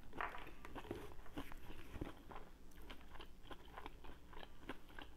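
Close-up chewing of a big mouthful of salad with lettuce, with many irregular crisp crunches.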